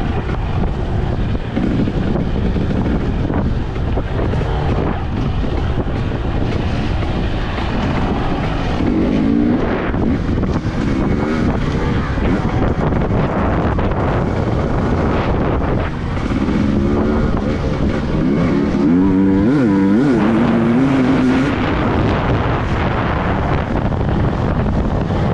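Fuel-injected two-stroke engine of a Husqvarna TE250i enduro bike being ridden, its revs rising and falling with the throttle, most clearly about nine seconds in and again between seventeen and twenty-one seconds. Heavy wind buffets the microphone throughout.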